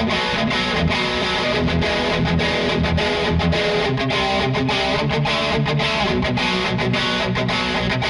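Ibanez GRGR121EX electric guitar played through a distorted amp tone, a fast riff with many brief stops between chords.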